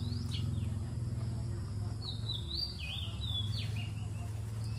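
Birds calling: a string of short whistled notes sliding down and up, mostly in the middle stretch, over a steady low hum.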